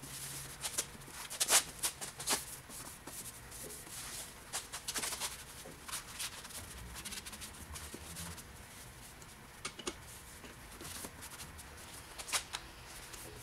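Cloth rag wiping down a snowmobile's front shock, suspension arm and plastic body panels: quiet irregular rubbing and rustling with scattered sharper ticks.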